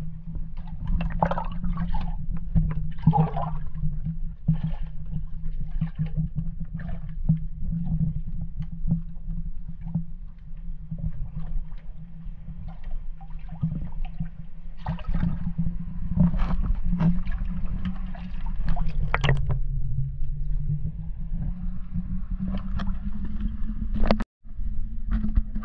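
Water sounds muffled and gurgling around a half-submerged camera in a canal, over a steady low hum, with irregular small clicks and knocks. The sound cuts out briefly near the end.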